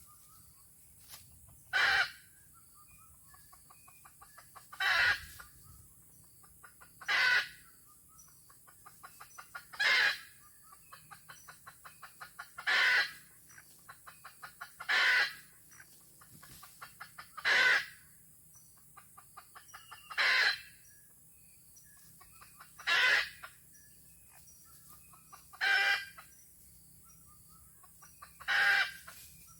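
Red junglefowl rooster crowing over and over, eleven short crows spaced about every two and a half to three seconds. Faint rapid clucking runs between the crows.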